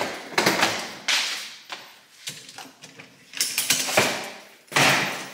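Suitcases being handled: several short bursts of clicking and scraping, spread across the few seconds.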